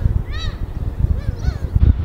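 Birds calling in short, honking notes that rise and fall in pitch, three or four times, over a steady low rumble.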